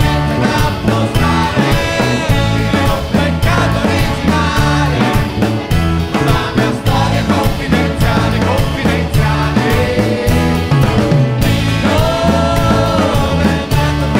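A live band playing a song: drum kit with cymbals, acoustic guitar and a singing voice over a steady beat.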